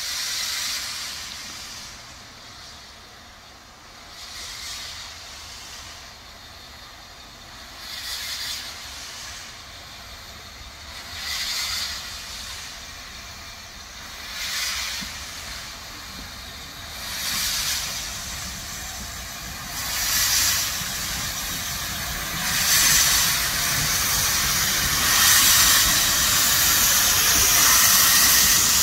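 LMS Black 5 two-cylinder 4-6-0 steam locomotive working uphill towards the listener, its steam hissing in rhythmic bursts that come quicker and louder as it approaches. Near the end it passes close by, wrapped in steam blowing from around its cylinders, and the hiss becomes loud and continuous.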